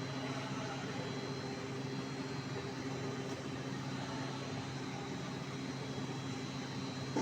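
Rice milling machinery running steadily: a continuous motor hum with a faint high whine over a dense mechanical rush.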